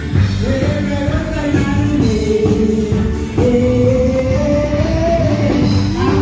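Song with a singer over a full band with guitar, the voice holding long notes, one about midway that rises slowly before dropping away.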